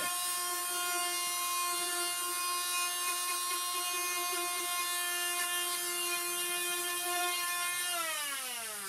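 Corded oscillating multi-tool with a triangular sanding pad running steadily as it sands the boat's hull around the transducer hole, a high, even buzz over a gritty hiss. Near the end it is switched off and its pitch falls as it winds down.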